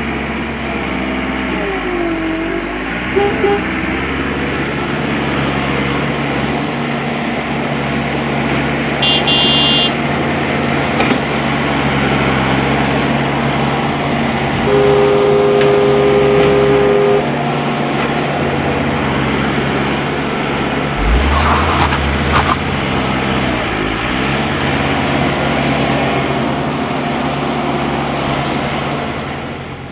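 Vehicle engine running steadily, with a two-tone horn held for about two seconds midway, a short high beep about a third of the way in, and a low thump with a hiss about two-thirds in.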